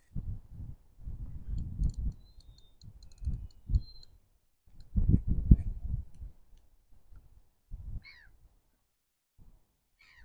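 Wind buffeting the microphone in gusts, a low rumble that comes and goes and is strongest about five seconds in. A run of faint high ticks about two to three seconds in, and two short high chirps near the end.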